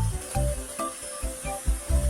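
Music with a steady, thumping bass beat and short pitched notes, over a constant high hiss.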